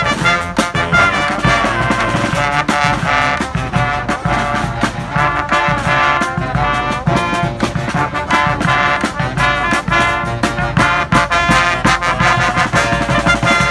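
Brass street band playing live: horns carrying a lively tune in stacked chords over a steady beat.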